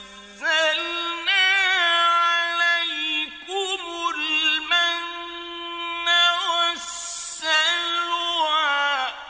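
A male Quran reciter chanting in the melodic mujawwad style, holding long ornamented notes that waver in pitch, with short pauses between phrases. There is a brief breathy hiss about seven seconds in. Near the end the phrase stops and the voice fades out in an echo.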